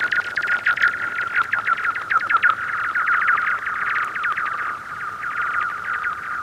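A rock skipping and sliding across thin, freshly frozen lake ice: an eerie, rapid patter of chirps over a steady high ring, carried through the ice. The patter thins and fades near the end.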